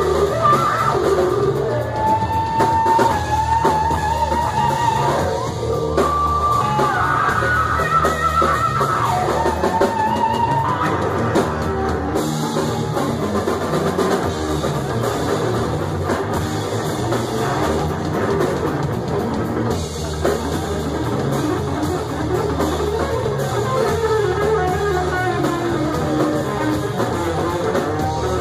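Live rock band playing an instrumental passage: electric lead guitar over bass guitar and a drum kit. For the first ten seconds or so the lead guitar holds long, bending notes.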